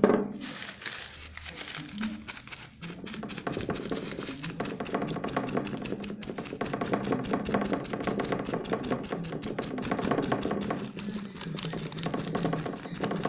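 A sharp knock right at the start, then a hand tool scraping and tapping rapidly across spray-painted cardstock, a steady run of short scratchy strokes several times a second.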